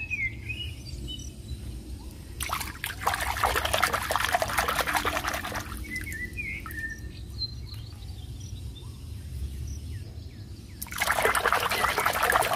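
A hand swishing and splashing water in a bucket while washing a toy egg: a spell of splashing of about three seconds, then a shorter one near the end. Birds chirp faintly in the quieter stretch between.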